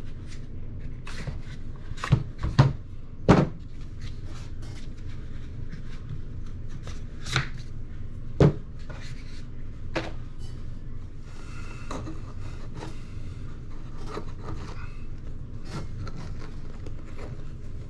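Hands working a rubber RC crawler tire over its sidewall insert on the wheel: scattered clicks, knocks and rubbing, with a few sharper knocks about two to three seconds in and again about eight seconds in, over a steady low hum.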